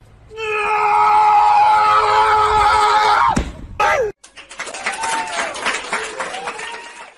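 Dog howling: one long high howl held for about three seconds that drops away at the end, then shorter howls that rise and fall.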